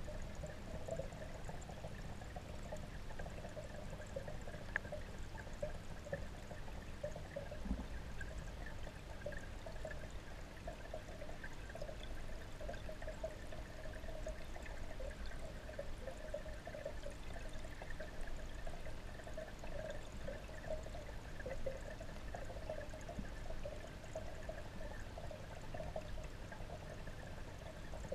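Steady flowing, bubbling water heard underwater in a goldfish pond, with a fluttering mid-pitched bubbling over a low rumble, unchanging throughout.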